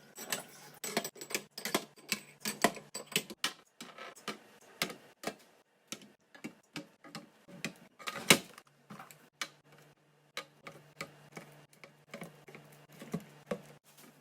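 Irregular light clicks, clacks and knocks of containers, jars and lids being handled and set down on fridge shelves, one sharper knock about eight seconds in. A low steady hum joins in the second half.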